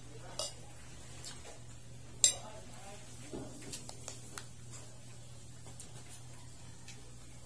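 A metal spoon and fork clinking and scraping against a ceramic plate while eating: several sharp clinks, the loudest about two seconds in, with smaller ones a little later, over a steady low hum.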